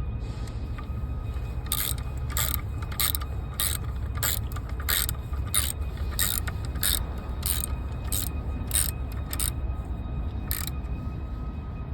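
Hand ratchet wrench clicking in a steady series, about one to two clicks a second, as 10 mm bolts are tightened down, with a last single click a second later.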